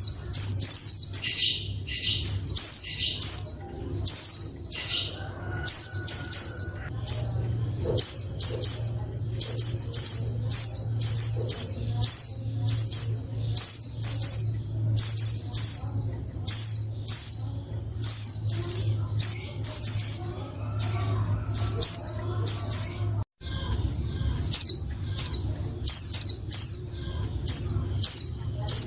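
A female white-eye (pleci, Zosterops) calling without pause: short, high, down-slurred chattering notes in quick groups of two to four, about one group a second. A steady low hum runs underneath and drops out briefly about 23 seconds in.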